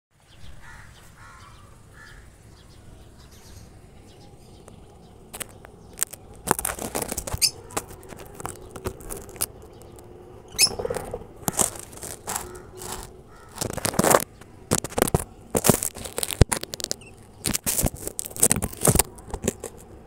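Rosy-faced lovebirds flapping their wings in a wire cage: many short, irregular bursts of flutter, starting about five seconds in and clustering near the end.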